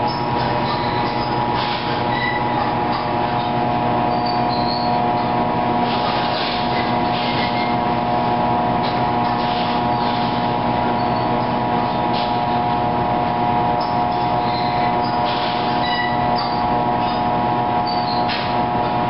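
Steady machinery hum with several held tones, unchanging in level. Over it, cloth and rolled tea leaves rustle now and then as hands press and loosen them.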